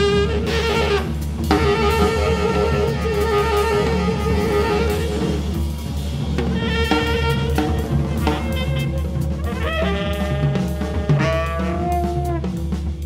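Jazz trio music: tenor saxophone playing long held notes with bends in pitch, over bass and a drum kit. The saxophone slides up into a higher note about ten seconds in.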